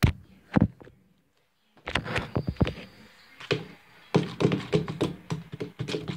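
A utensil stirring slime mixture of glue and shaving cream in a bowl, giving irregular knocks and taps against the bowl, with a short break a little after a second in.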